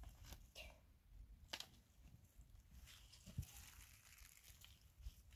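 Near silence, with a few faint scattered clicks and rustles and one soft thump about three and a half seconds in.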